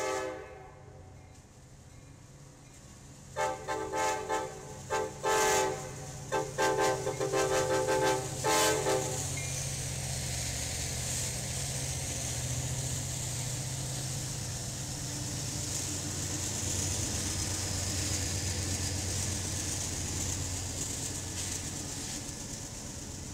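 Union Pacific freight train's diesel locomotives sounding the horn: a short blast at the start, then a series of loud blasts from about three to nine seconds in. After that the locomotives' engines and wheels run steadily past, growing slightly louder before easing near the end.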